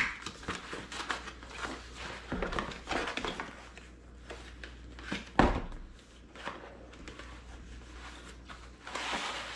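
A cardboard product box being handled and opened: the seal peeled, the box lifted and its lid worked off, with scraping and rustling, a knock about five seconds in, and a sliding rustle near the end as the lid comes away.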